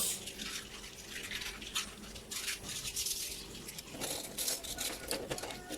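Metal spoons clicking and clattering lightly as they are moved around in a plastic cutlery basket in a dishwasher rack, in irregular small clicks over a faint steady hum.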